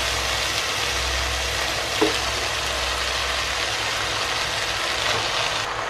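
Stir-fry sizzling steadily in a large pan, with a low steady hum underneath.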